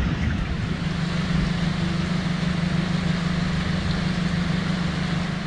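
A boat engine running steadily at low speed, its low hum strengthening about a second in, over an even rushing noise of water and wind.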